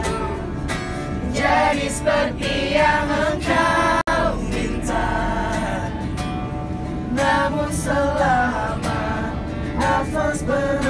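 A man singing a song live to an acoustic guitar, the sound briefly cutting out about four seconds in.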